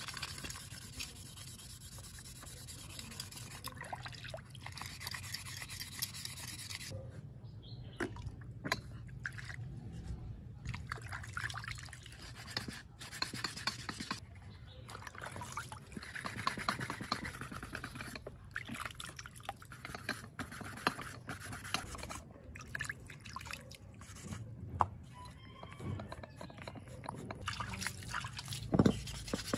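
Wet sandpaper scrubbing back and forth on the rusty metal parts of an old hydraulic jack, with water dripping and sloshing. A few sharper splashes and knocks come near the end.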